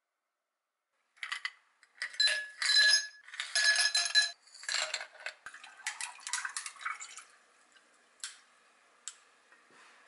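Ice clinking against a tall drinking glass, with ringing glassy clinks, then water poured over the ice with crackling clinks. The pour dies away about seven seconds in, followed by two small sharp clicks.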